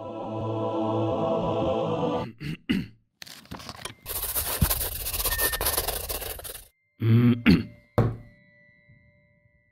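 Sound effects for an animated logo intro: a swelling musical chord, a few quick hits, a long noisy whoosh, then two or three deep thuds with a falling pitch about seven seconds in, followed by a faint high ring that fades out.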